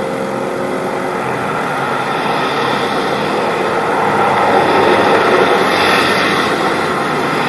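Steady noise of busy road traffic, swelling for a moment about five to six seconds in as a vehicle goes by.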